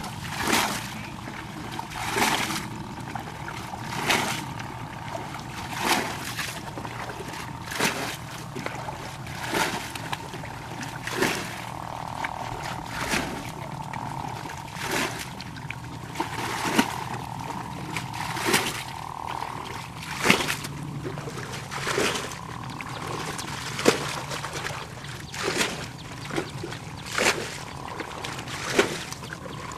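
Water splashing at a steady pace, about one splash every two seconds.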